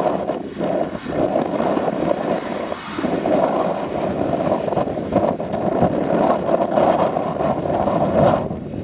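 Claas Jaguar 850 self-propelled forage harvester running under load, picking up and chopping grass and blowing it into a trailer alongside: a steady, loud machine noise with a few brief dips.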